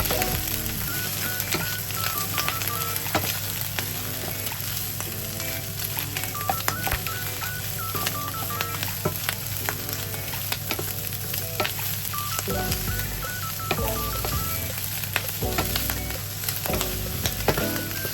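Food sizzling in a frying pan while it is stirred, with scattered sharp clicks of the utensil against the pan.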